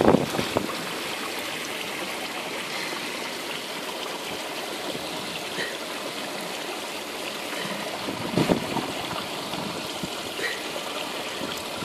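Filtered water running steadily along a koi pond's filter return trough, a constant trickling flow.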